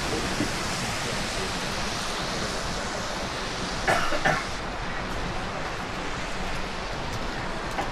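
Steady rushing noise of falling water from the rain and falls of a wet mountain valley. About four seconds in it is broken by two short human vocal sounds.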